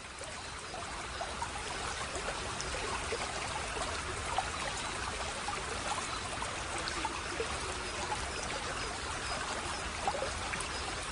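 Stream water running and trickling over rocks, a steady babble with scattered small plinks, fading in over the first couple of seconds.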